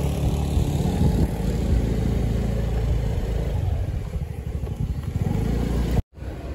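Motorbike engine running steadily while being ridden. It cuts off abruptly about six seconds in.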